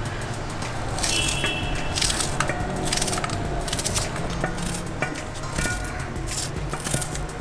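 Knife slicing onion on a wooden cutting board: a series of short, sharp cuts at an uneven pace, roughly one a second.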